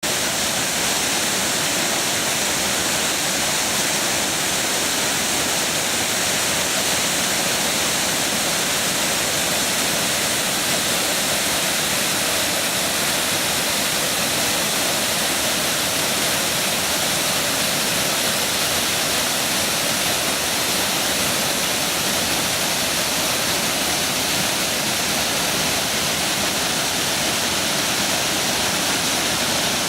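Waterfall on Lowell Creek in high flow after a flood: a loud, steady rush of falling water.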